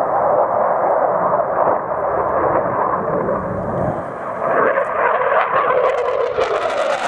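JAS-39 Gripen fighter's single turbofan engine heard in flight overhead: a loud, steady rushing jet noise that turns harsher and crackling over the last couple of seconds as the aircraft banks closer.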